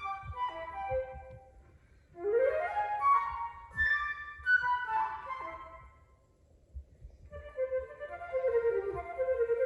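Solo flute playing: a quick upward run of notes and a flurry of phrases, a brief fade to near quiet, then low notes rapidly alternating in a trill-like figure near the end.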